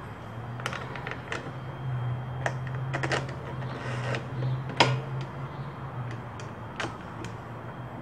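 Scattered clicks and light knocks of small metal and plastic parts being handled and fitted at a push mower's carburetor, the sharpest about five seconds in, over a steady low hum.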